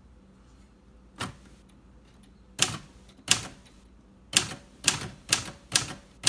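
1955 Royal Quiet Deluxe manual typewriter being typed on: separate key strikes, the typebars hitting the platen. Sparse single strokes at first, then a quicker run of about two strokes a second in the last two seconds.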